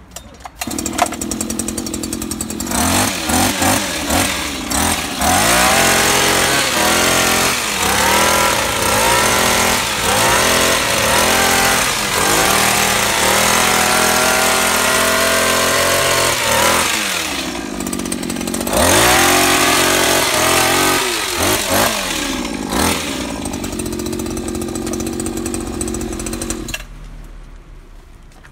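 Maruyama BHT600DR hedge trimmer's small two-stroke engine starts about a second in and idles. It is then revved up and down again and again as the blades cut through leafy vines, and settles back to idle between bursts. It cuts off shortly before the end.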